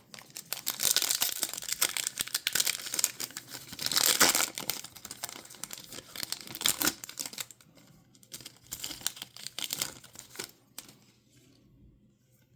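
Trading card pack wrapper being torn open and crinkled by hand, a dense run of crackling loudest about four seconds in, a second flurry about nine seconds in, then fading out.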